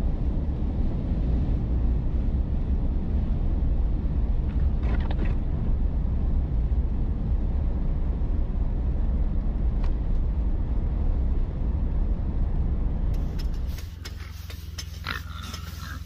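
Steady low rumble of a vehicle driving on a snow-covered road, heard from inside the cab. About thirteen seconds in it cuts to a quieter scene with rustling and a brief pig grunt near the end.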